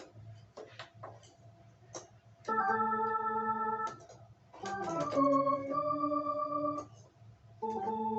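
Alesis Recital 88-key digital piano playing held chords on an organ voice: three chords, each sustained steadily for a second or two, with short gaps between them.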